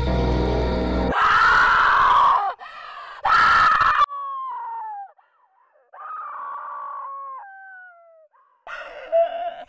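Music cuts off about a second in, and a young woman screams twice, loudly. Her screams then trail into long, falling wails.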